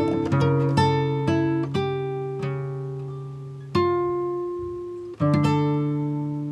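Background music on acoustic guitar: plucked notes and chords that ring out and fade, with a new chord struck about midway and another near the end.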